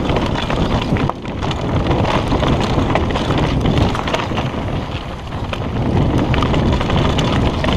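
Mountain bike descending a rough, dry dirt trail: tyres crunching over loose dirt and stones, and the bike rattling and knocking over the bumps. Wind rushes over the camera microphone throughout.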